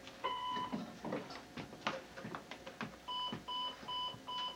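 Answering machine beeping after playing back a message: one half-second beep about a quarter second in, then a run of short, evenly spaced beeps, about two a second, from about three seconds in. Light clicks and knocks of handling are heard between them.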